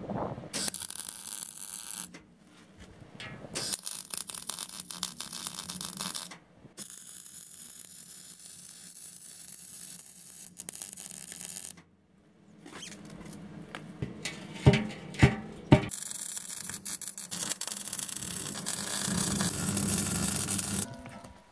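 MIG welder's arc crackling and hissing while welding steel, in several runs of a few seconds each with short pauses between. Three sharp knocks sound a little over halfway through.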